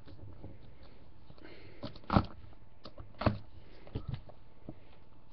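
Hand handling a cardboard trading-card box, opening its lid: faint rustling with a few sharp clicks and knocks, the loudest about two and three seconds in.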